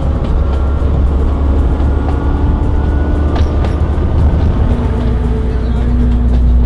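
Diesel train running on the line: a loud, steady low rumble with an engine drone whose note shifts slightly about two-thirds of the way through, and a single click in the middle.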